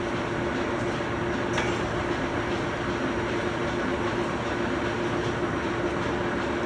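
Steady machinery hum and rumble with a constant low tone, and one light click about a second and a half in.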